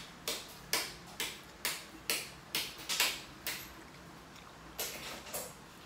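Person slurping glass noodles (sotanghon) from soup: a rhythmic run of short, sharp sucks about two a second, then a pause and two more near the end.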